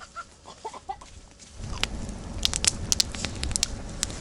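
Small campfire of sticks crackling, with many sharp pops over a low rumble, starting about one and a half seconds in. Before that there are only a few faint short chirps.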